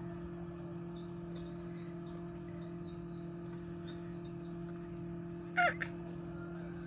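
Coturnix quail chicks peeping: a quick run of high, short, falling peeps, about five or six a second, then one louder, lower peep near the end, over a steady low hum.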